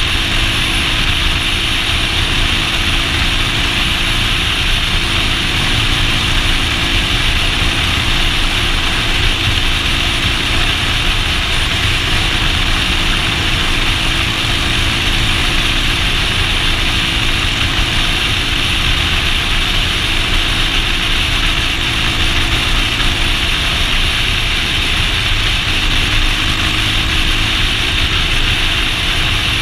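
Motorcycle engine running steadily while riding along the road.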